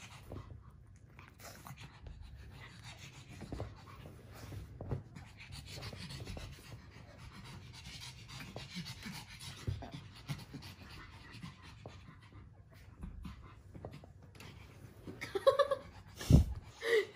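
Japanese Chin dogs panting and scuffling on soft cushions during rough play. Near the end come a few short, louder dog vocalisations and a dull thump.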